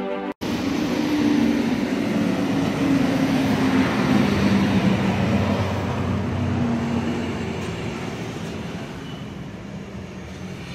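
A steady roar of vehicle engine noise with a low hum, loudest about four seconds in and then slowly fading, like a vehicle passing. Background music cuts off just before it.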